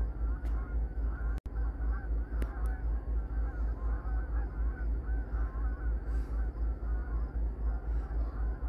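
A flock of Canada geese honking, many calls overlapping without a break, over a steady low rumble.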